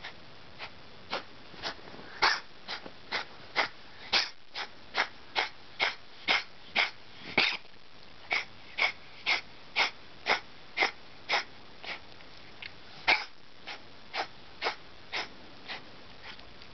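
Burmese cat coughing in a long fit of short coughs, about two a second, with a short pause about halfway through: the cough of feline asthma or bronchial disease.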